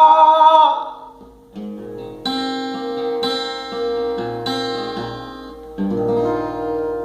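A held sung note trails off about a second in, then an acoustic guitar plays a few slow strummed chords that ring out, closing the song.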